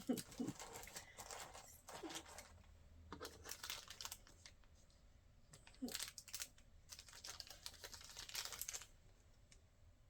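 Blind-box packaging being crinkled and torn open by hand, in several bouts of crackling with short pauses between.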